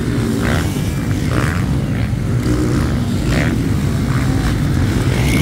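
Motocross dirt bikes' engines running as they race around the track, a steady low rumble.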